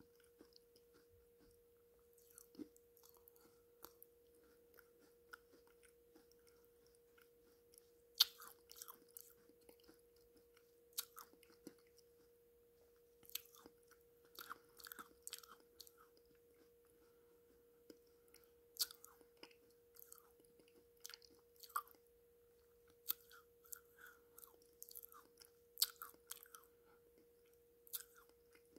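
A person chewing clay close to the microphone: soft, irregular mouth clicks and crunches, with a few sharper crunches. A faint steady tone hums underneath throughout.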